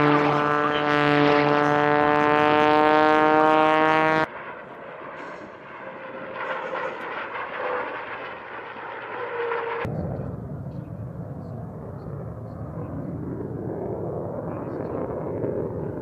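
Piston engine of an aerobatic propeller plane droning steadily and loudly. About four seconds in it cuts off abruptly to quieter engine sound from a P-51 Mustang and F-22 Raptor flying in formation. Near ten seconds in it switches suddenly to a broad jet rumble from the F-22 Raptor.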